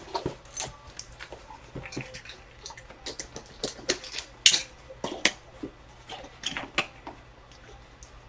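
Trading-card box and cards being handled by hand: an irregular run of light clicks, taps and rustles, the sharpest about four and a half seconds in.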